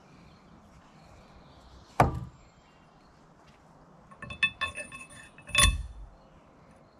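Metal parts knocking and clinking with a brief ring as they are handled on an upright axle shaft: one sharp knock about two seconds in, a run of lighter clinks a little past four seconds, then a second loud knock soon after.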